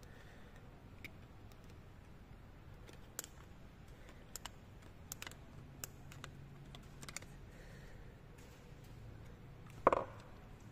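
Scattered light clicks and taps of fuel pump assembly parts being handled and fitted, with one louder knock just before the end.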